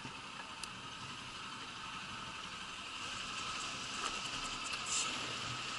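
Motorcycle engine running steadily at low speed as the bike creeps along, with a few faint clicks and slightly louder in the second half.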